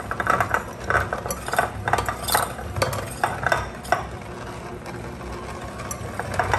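Electric hand mixer beating softened cream cheese, powdered sugar and vanilla in a glass bowl, its beaters knocking and scraping against the glass over a low motor hum. The knocking eases to a quieter, steadier run about four seconds in.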